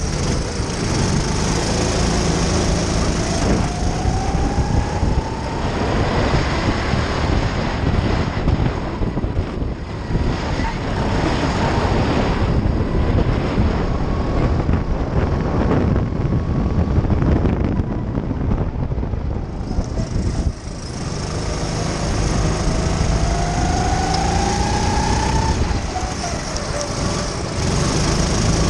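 Onboard sound of a racing kart's engine at speed, with wind rush over the camera microphone. The engine note rises as the kart accelerates out of bends, about four seconds in and again past twenty seconds, and drops off briefly just after twenty seconds as the throttle is lifted for a corner.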